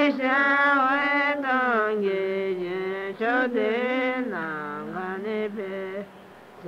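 Slow religious chant-like singing, with long held notes that bend and waver in pitch and a brief pause near the end.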